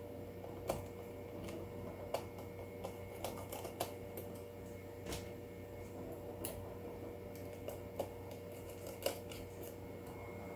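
Irregular light clicks and taps of a small screwdriver and plastic and metal parts being handled on a keyboard's circuit board during reassembly, about a dozen scattered through, over a steady faint hum.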